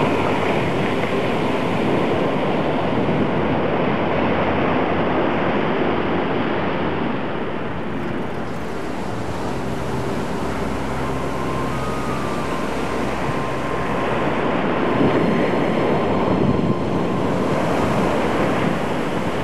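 Ocean surf: waves breaking and washing up a sandy beach, a steady rushing wash that grows a little louder as a larger wave breaks near the end.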